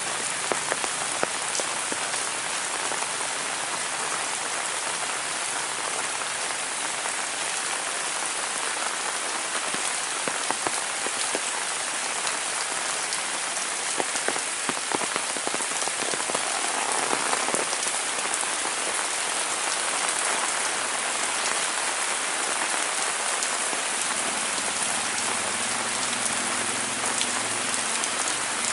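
Heavy rain falling steadily, a dense hiss with the sharp taps of individual drops striking nearby surfaces.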